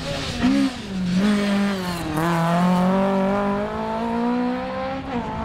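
Toyota Corolla GT AE86 rally car's twin-cam four-cylinder engine under hard driving. The revs dip about half a second in and fall to about two seconds, then climb steadily as it pulls through a gear, and ease off near the end.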